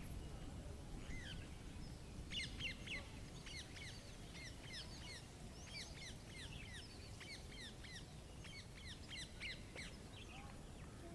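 Songbirds chirping: a quick, irregular run of short falling chirps that starts about a second in and thins out near the end, over a steady low background noise.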